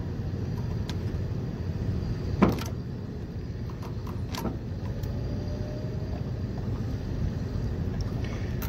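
Steady low rumble with a few short plastic clicks and ticks as a zip tie is handled and threaded around a condenser fan motor's wire plug and bracket. The loudest click comes about two and a half seconds in, and another about four and a half seconds in.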